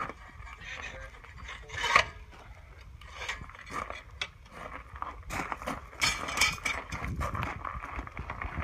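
Boots shuffling on gravel and a steel crucible-lifting shank scraping and clanking as it is let go and laid down beside a crucible of molten bronze, with one sharp knock about two seconds in.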